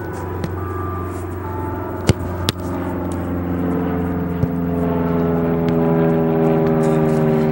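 Two sharp thuds about half a second apart, a soccer ball being struck and saved, over a steady engine drone. From about three seconds in, the drone grows louder and its pitch slowly falls.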